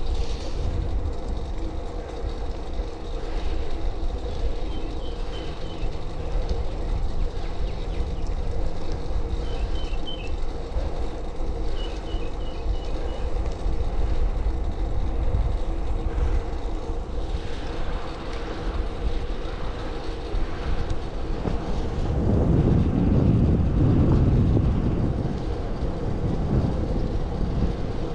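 Road bicycle on 25 mm Continental Gatorskin tyres rolling over rough pavement: a steady rumble and rattle from the tyres and frame, with wind on the microphone. The rumble grows louder for a few seconds about 22 seconds in.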